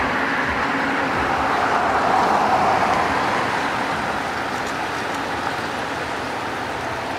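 Street traffic noise: a car driving past close by, loudest about two to three seconds in and then easing off.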